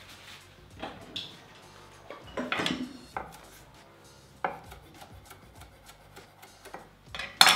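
Chef's knife chopping fresh parsley on a wooden cutting board: irregular knocks of the blade on the board, with a longer scraping clatter about two and a half seconds in and the loudest knock near the end.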